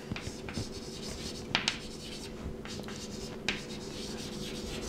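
Chalk writing on a chalkboard: a scratchy rubbing as the letters are drawn, with a few sharper taps of the chalk, about a second and a half in and again near three and a half seconds.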